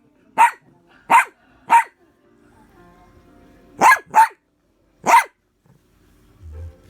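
Dog barking in short, sharp barks at a cicada's cast-off shell that frightens it: three barks about half a second apart, a pause, then three more.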